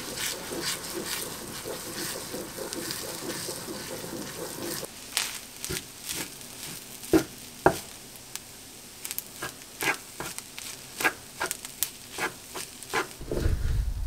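Egg fried rice sizzling in a nonstick frying pan while a wooden spoon stirs and scrapes through it. After about five seconds the sizzle thins out and sharp clicks and taps of the spoon against the pan take over. There is a low bump near the end.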